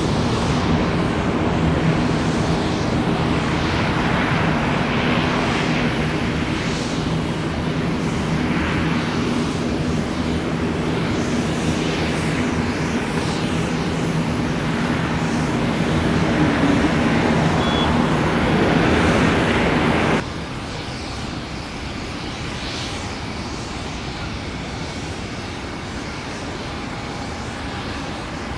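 Airbus A220-300 airliner landing and rolling out, its Pratt & Whitney PW1500G geared turbofans giving a steady low engine hum under a broad rush of jet noise. The noise swells a little, cuts off abruptly about twenty seconds in, and gives way to a quieter, steady jet-engine background.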